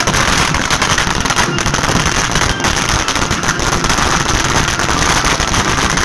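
Firecrackers going off on the ground in a rapid, continuous crackle of small bangs.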